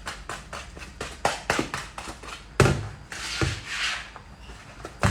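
Brownie batter being mixed by hand in a bowl: a utensil ticking and scraping against the bowl in quick irregular strokes, with a couple of louder knocks.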